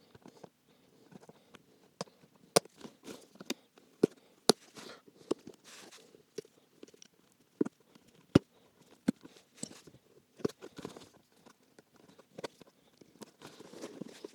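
Old welt stitching being picked and pulled out of a Loake 1880 derby shoe's leather welt: irregular sharp clicks and brief rasps as thread comes free.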